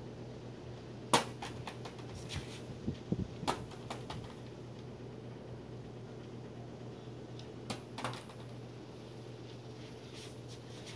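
Plastic water bottle knocking onto a concrete floor during bottle flips: a sharp clack about a second in, a few lighter knocks between two and four seconds, and two more near eight seconds. A steady low hum underneath.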